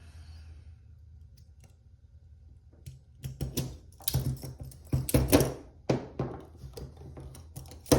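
Steel handcuffs clicking and rattling as they are worked with a shim: a quiet start, then from about three seconds in a busy run of sharp metallic clicks, with one sharp click near the end.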